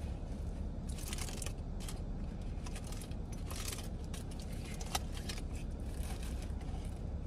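Aluminium foil crinkling and rustling in short, irregular bursts as a foil-wrapped tamale is picked apart with a plastic fork, over a steady low hum.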